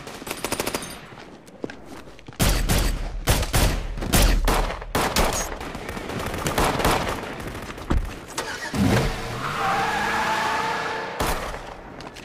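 Shootout on a film soundtrack: a fast burst of automatic rifle fire, then heavy rapid gunfire with single shots through the first half. About nine seconds in comes a car's engine revving with a wavering tyre squeal, then one more shot.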